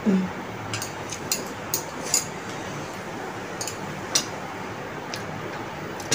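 Metal chopsticks clicking against plates while eating noodles: a few sharp clicks in quick succession early on, then two more around four seconds in, over a steady low hiss.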